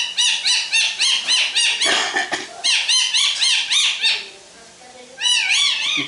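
Rose-ringed parakeet mimicking a puppy's whimpering yelps: a quick run of short rising-and-falling yelps, about three a second, breaking off about four seconds in, then a few more near the end.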